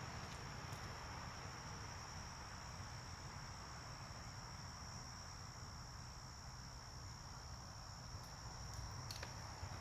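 Steady chorus of night insects: one unbroken high-pitched trill, with a low rumble underneath.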